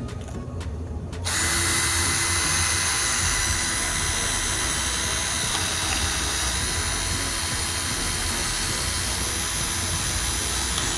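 Toolntool 21V cordless drill running steadily as it bores a twist bit into the edge of a particleboard plank, cutting through easily. The drill starts about a second in and runs at an even pitch without letting up until it stops at the very end.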